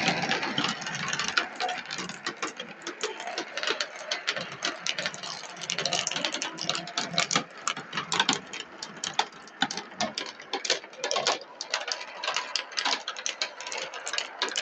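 A pack of 16 mm marbles rolling and rattling down a marble-run track: a continuous rolling rumble with many quick, irregular clicks as the marbles knock against each other and the track.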